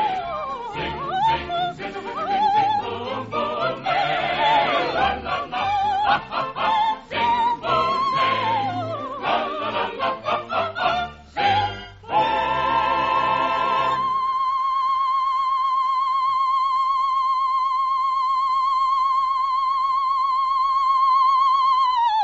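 Operatic soprano singing with orchestral accompaniment: quick runs and swooping phrases, then a long high note with vibrato held alone for about eight seconds, stepping down at the very end.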